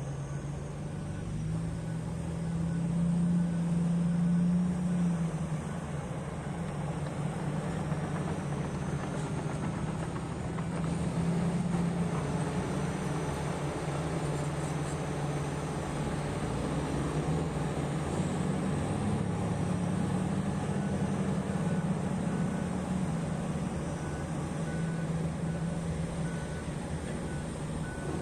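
Heavy diesel engine of mining earthmoving equipment running steadily, its low drone swelling and easing as it works. A faint beeping repeats near the end.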